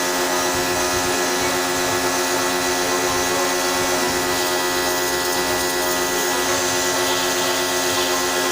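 A machine running steadily: an even motor hum with a constant hiss over it, with no change in pitch or level.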